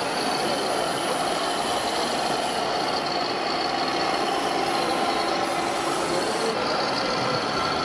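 Steady idling diesel truck-engine sound from radio-controlled model trucks, mixed with the background noise of a busy exhibition hall.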